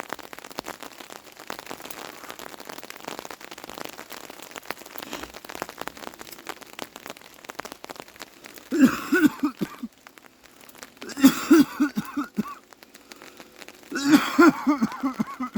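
Steady rain pattering down, interrupted three times by short, louder bursts of a rapidly pulsing pitched sound.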